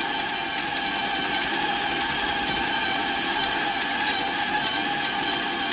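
KitchenAid stand mixer running steadily with an even motor whine, its beater creaming butter and sugar in the steel bowl.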